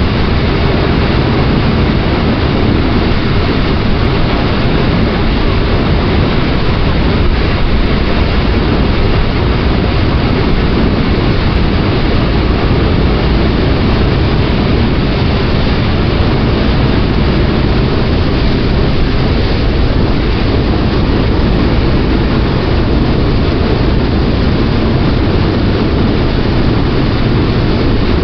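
Passenger ferry's engines running steadily under way: a loud, deep, constant drone with no change in pace.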